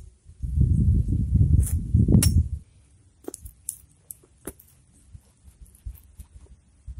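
A garden fork being driven into dry, stubbly soil under a rubber boot. A low rumbling thud lasts about two seconds near the start, then come scattered light clicks and crunches of soil and dry straw.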